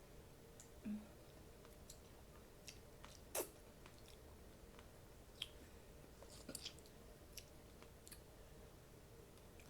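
Faint chewing and mouth sounds of someone eating, with scattered soft clicks and smacks, the loudest a little over three seconds in and a small cluster past the middle.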